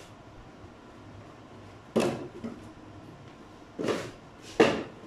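Wooden breeding boxes being handled and set down on one another, knocking three times: once about two seconds in, then twice close together near the end, the last knock the loudest.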